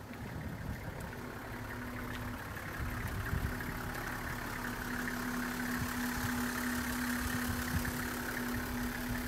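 Toyota Coaster bus's 1HZ inline-six diesel engine idling steadily, with a steady tone over the engine sound from about a second in.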